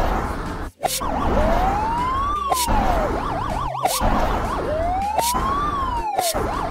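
Police car siren sound effect: it alternates between a slow wail that rises and falls and a fast warbling yelp. A few short clicks sound in between.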